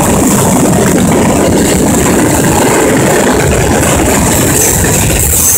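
Diesel locomotive engines running loud and steady as the train passes close by.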